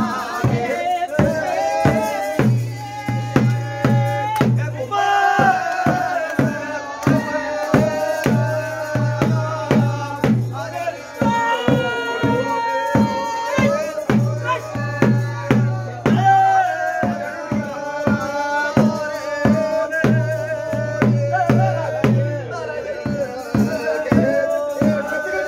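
Theyyam ritual music: drums beating fast, steady strokes with rattling percussion, under a wavering melodic line.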